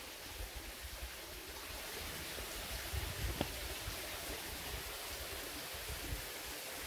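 Steady rush of a small stream flowing over rocks, with a low uneven rumble underneath and one faint tap about three and a half seconds in.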